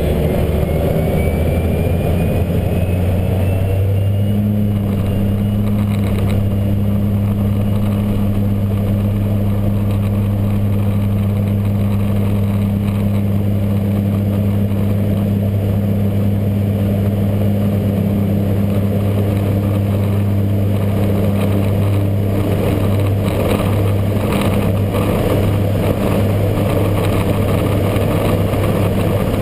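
Single-engine propeller airplane's engine and propeller at takeoff power, heard from inside the cockpit: a loud, steady drone through the takeoff roll and lift-off. A faint whine rises in pitch over the first few seconds as the drone settles.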